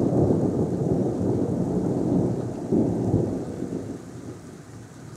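Thunder rumbling in a long low roll that swells again about three seconds in, then fades away near the end.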